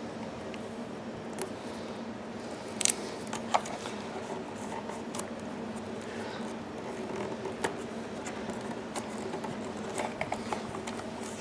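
A plastic cable tie being pulled tight and snipped during hand work inside a generator: scattered sharp clicks and snaps, the loudest about three seconds in and a quick cluster near the end, over a steady low hum.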